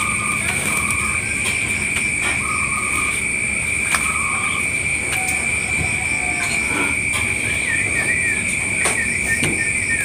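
Ringneck dove (local puter) cooing in short phrases over a steady high-pitched ringing, with small quick chirps near the end.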